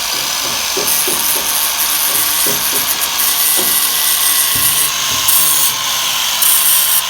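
Handheld electric power tool running at a steady high speed in car body repair work, with a high whine. Bursts of harsh hiss come and go from about a second in, as the tool works the panel surface.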